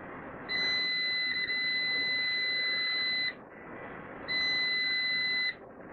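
A digital multimeter's continuity beeper gives a long steady high-pitched beep of about three seconds, then a second, shorter beep. The probes are held across a diode on a hard drive's circuit board, and the beep shows that it conducts: a diode the technician finds defective.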